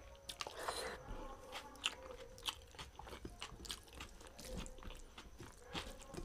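Close-up chewing and wet mouth smacking of a man eating dal and rice by hand, heard as many short, irregular clicks, along with fingers mixing rice on a steel plate.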